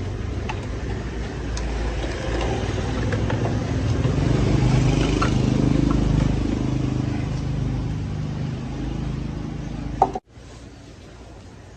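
Small motorcycle engine running, swelling louder to a peak mid-way and then easing off, as when it rides past or revs. About ten seconds in there is a sharp click, and the engine cuts off abruptly to a quieter background.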